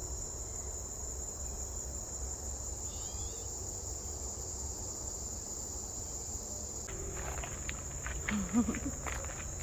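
Steady high-pitched chorus of insects singing. From about seven seconds in, footsteps rustle through vegetation, with a brief low voice sound near the end.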